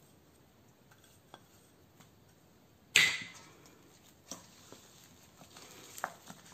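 A single sharp clink about three seconds in, glass knocking against a stainless steel mixing bowl, with a short ring. After it come soft squishing and small light knocks as a hand kneads soap paste with powder in the metal bowl.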